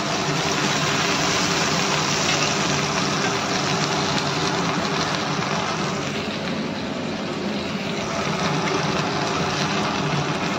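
Kebabs sizzling in hot oil in a black iron frying pan, a loud steady hiss, with a faint steady low hum beneath it.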